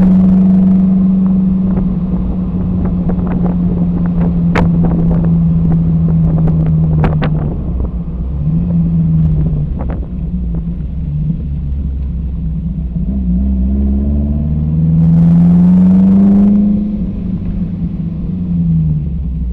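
1969 Alfa Romeo Spider 1750 Veloce's twin-cam four-cylinder engine, fed by Weber carburettors, pulling the car along the road. It holds a steady cruising note for the first several seconds, eases off and comes back on, then rises in pitch under acceleration about two-thirds through, its loudest part, before dropping back near the end. A few sharp clicks come in the first half.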